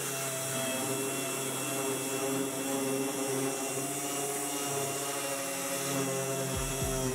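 Background music of held synth chords that change every second or two over a steady high hiss, with a bass beat coming in near the end.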